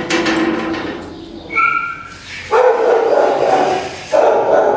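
Dog barking repeatedly, loudest in the second half.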